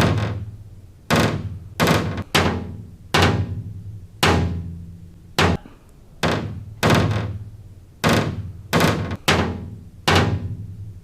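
A small body hammer tapping a car's steel roof panel, about fourteen taps at uneven intervals, each with a low ringing tail. Some ring on like a gong, as the bare epoxy-primed panel does, while others die away quickly in a short thud, as the panel does once coated with Lizard Skin sound deadener.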